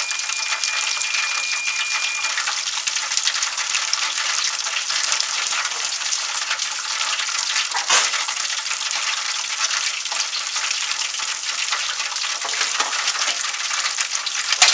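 Chicken wings deep-frying in oil at about 375°F: a steady crackling sizzle, with one louder pop about eight seconds in.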